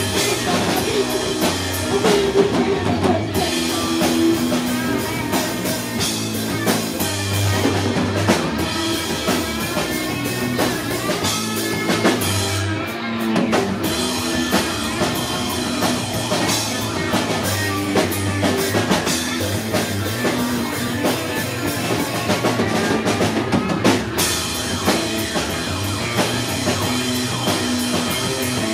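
Live instrumental rock: distorted electric guitars and a drum kit played together at full volume, without vocals.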